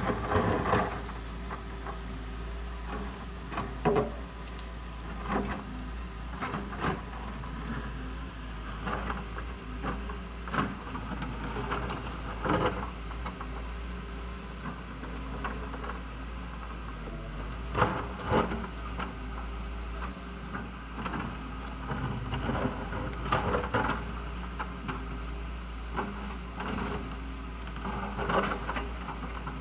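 Doosan DX140W wheeled excavator's diesel engine running steadily while its bucket digs into a rocky hillside, with irregular knocks and scrapes of rock and soil every few seconds.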